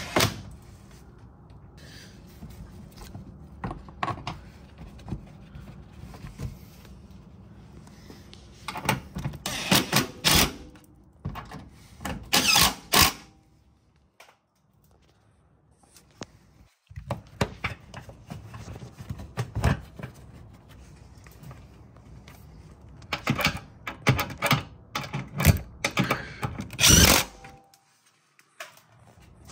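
Mechanic's tools fastening 10 mm bolts back in: three spells of rapid clicking and knocking, with a short quiet gap about halfway through.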